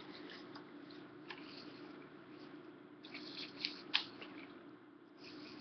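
Kale leaves being pulled from a plastic clamshell container and dropped into a skillet: faint rustling of leaves and plastic, with a few sharp crinkles, most of them around four seconds in, over a steady low hum.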